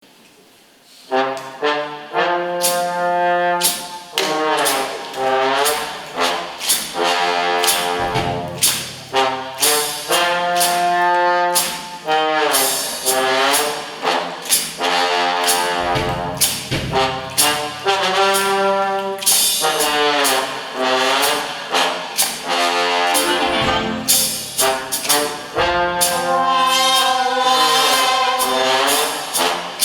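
Brass band playing a blues, trombones and trumpets over a walking bass line with a steady beat, starting about a second in.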